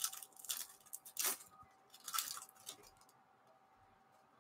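Foil wrapper of a baseball card pack crinkling as it is torn open by hand and the cards slid out, in a handful of short rustles over the first three seconds.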